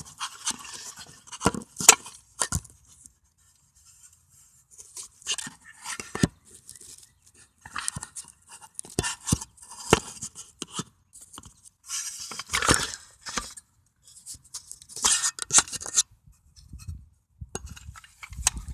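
Handling noise from a camera being turned and repositioned: irregular scraping, rustling and clicks, with a couple of short quiet gaps.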